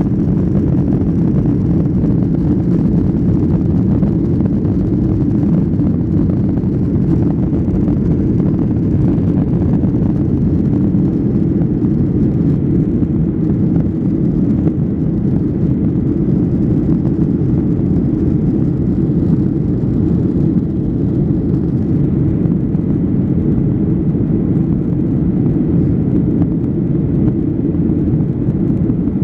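Passenger airliner cabin noise: a loud, steady low rumble that does not change.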